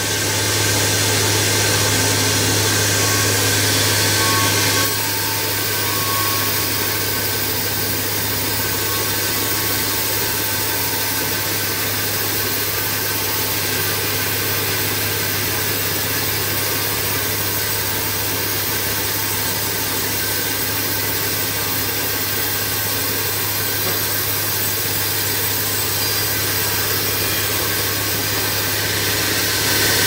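Homemade sawmill bandsaw running steadily, its blade sawing lengthwise through a large squared timber: a constant low hum under an even hiss of cutting. The level drops slightly about five seconds in, then holds.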